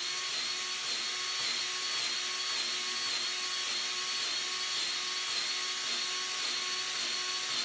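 Powered grease gun running steadily, a constant motor whine with a faint regular pulse, pumping grease into the excavator's track tensioner cylinder to take up track slack.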